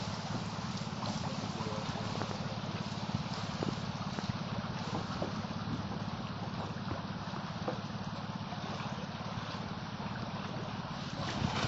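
A boat engine running steadily with a low, even pulsing, over the rush and gurgle of water along the hull. There are a few faint clicks now and then.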